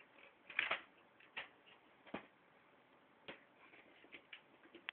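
Scattered light taps and knocks a second or so apart, the loudest a short cluster about half a second in.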